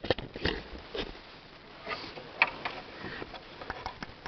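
Scattered light metallic clicks and taps as an 8 mm bolt is worked into the locking hole of the timing-belt sprocket, with a few sharper knocks in the first half second.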